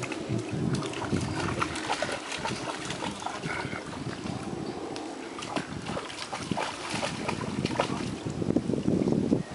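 A dog wading through shallow pond water, its legs splashing and sloshing in quick irregular bursts, with wind buffeting the microphone.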